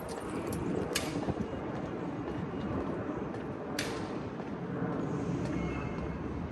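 Steady outdoor city background noise, with two sharp knocks, one about a second in and another a little before four seconds.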